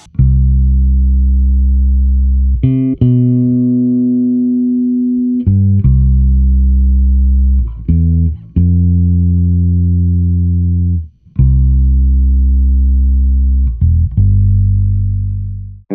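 Electric bass guitar recorded direct to a line input with no amp, playing long held low notes joined by short passing notes. The last note fades out near the end.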